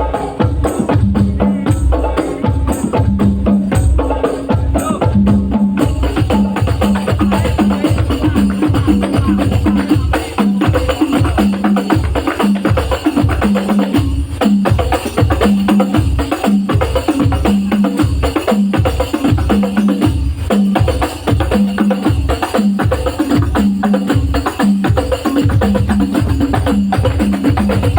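Hadrah-style percussion ensemble: frame drums (rebana) and a deep bass drum beating a fast, steady rhythm over a repeating low note, loud through a sound system.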